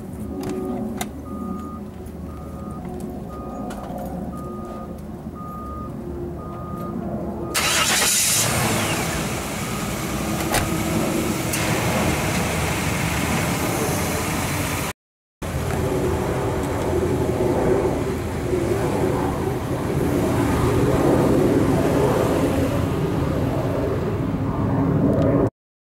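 A regularly repeating high beep over quiet engine-less background, then about seven seconds in a Chevrolet truck's engine starts with a sudden loud burst and keeps running. After a brief cut to silence about halfway, the engine runs on as the truck pulls away, and the sound cuts off just before the end.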